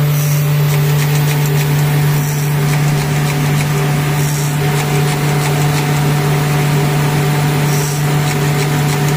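Electric motor of a gold bangle-cutting machine running with a steady low hum.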